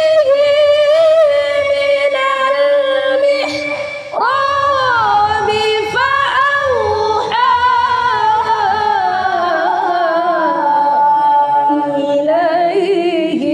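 High voice reciting the Quran in melodic tilawah style: long held notes with wavering ornaments. A short breath-break comes about four seconds in, and then a new phrase starts high and slowly descends.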